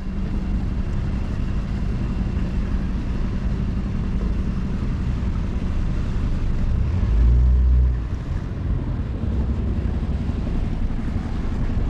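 A small fishing boat's motor running steadily under way, with wind and water noise. A louder low rumble comes about seven seconds in and lasts about a second.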